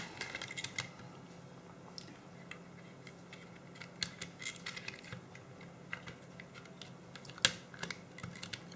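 Small scattered clicks and taps of the Olympus C-350 camera's plastic and metal parts being handled and pressed into place during reassembly, with one sharper click about seven and a half seconds in.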